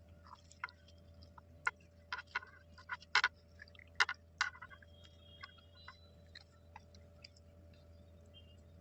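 A run of irregular, sharp taps and clicks, loudest and closest together in the middle, thinning to faint scattered ticks, over a steady low hum.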